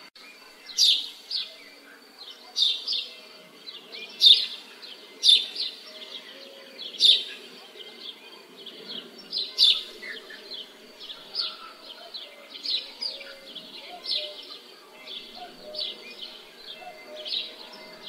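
Small birds chirping: short, sharp, high chirps repeated about once a second, louder in the first half, over a faint steady background with a thin continuous high note.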